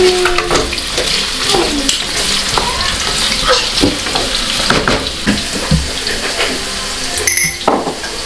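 Sliced carrots sizzling as they fry in hot oil in a nonstick frying pan, with the short scrapes and knocks of a wooden spoon stirring them.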